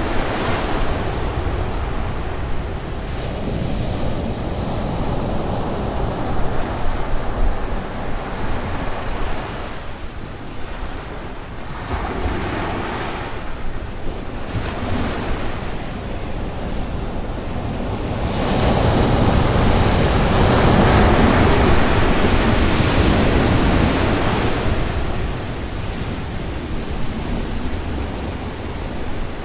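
Sea surf breaking and washing up the beach, with wind buffeting the microphone. A louder wash builds about two-thirds of the way through and lasts several seconds before easing.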